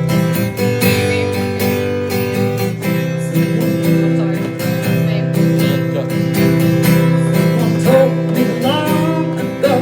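Acoustic guitar strummed in a steady rhythm, playing a song's intro before the singing begins.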